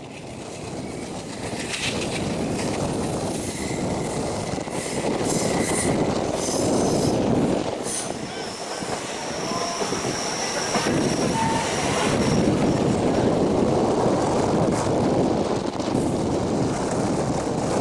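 Passenger train coaches running along the track, heard from an open coach door: a steady rumble of wheels on rail with scattered clicks, and a thin, high wheel squeal around the middle as the train takes a curve.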